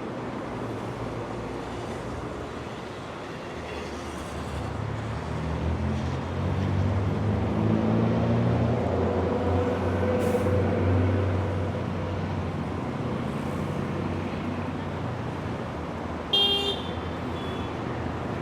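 City street traffic, with a steady background of passing vehicles. A large vehicle's engine builds up, passes loudest near the middle and fades. A short horn toot sounds near the end.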